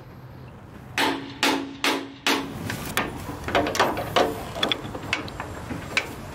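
Hand tool striking a metal gooseneck fitting where the boom meets the mast: four sharp blows about half a second apart, each with a short ring, then lighter irregular clinks and taps of metal on metal. This is work on gooseneck fittings that had come loose.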